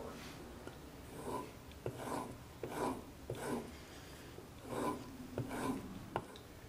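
A swivel knife blade is drawn along a leather strop charged with green compound in about six short scraping strokes, with light ticks as the blade is set down and lifted. This is stropping to polish and keep the cutting edge keen.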